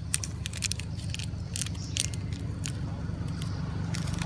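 Young monkeys biting into and handling crinkly plastic snack wrappers: a scatter of sharp, irregular crackles and clicks, with a steady low rumble underneath.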